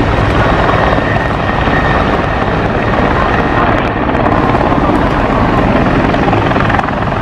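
Large military transport helicopter hovering low: loud, steady rotor and engine noise, with a faint high whine in the first couple of seconds.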